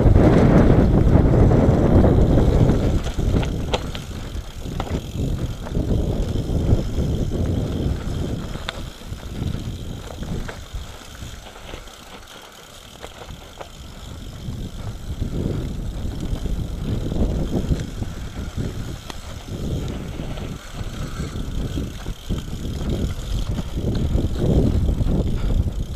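Nukeproof Mega 275 enduro mountain bike descending a dirt singletrack: wind buffeting the microphone and tyres rumbling over the trail, with frequent knocks and rattles from the bike over bumps. It quietens about halfway through as the pace drops through a tight bend, then builds again as speed picks up.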